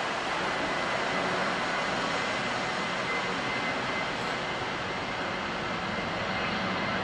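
Airbus A321-231 jet engines (IAE V2500) at takeoff power: a steady jet roar with a faint high whine.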